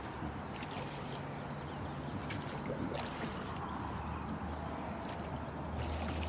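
Water gurgling and splashing along the hull of a small flat-bottomed rowboat as it is rowed, with a few sharp splashes or knocks at irregular moments.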